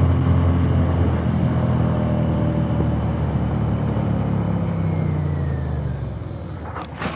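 Sport motorcycle's engine running at a steady speed under heavy wind rush, the engine note easing off about six seconds in; sharp knocks near the end as the bike goes down in a crash.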